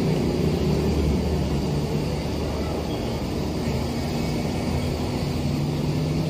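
Steady road-traffic noise: motor vehicle engines running with a low hum that shifts a little about three and a half seconds in.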